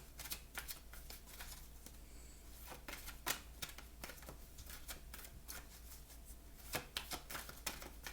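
Oracle card deck shuffled by hand: a run of soft, irregular card clicks and riffles.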